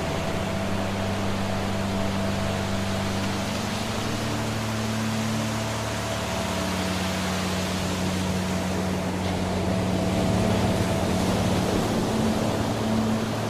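Steady rushing of a waterfall, with soft sustained low tones of relaxation music underneath whose notes change slowly.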